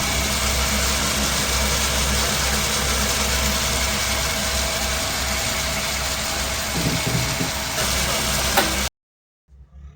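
Metal lathe running steadily with a knurling tool, a constant machine hum with a deep drone underneath. It cuts off abruptly about nine seconds in.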